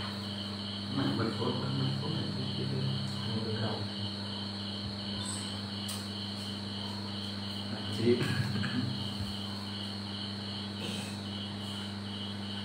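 An insect chirping steadily in a high, evenly pulsing trill, about two or three pulses a second, over a low steady hum. Faint voices come in briefly about a second in and again about eight seconds in.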